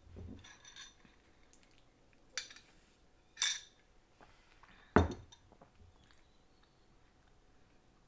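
A drinking glass with a straw being handled and set on a table: a few short clinks and knocks, the loudest a knock about five seconds in.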